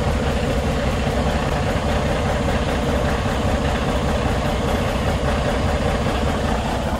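Semi truck's diesel engine idling steadily, heard up close at the exhaust outlet.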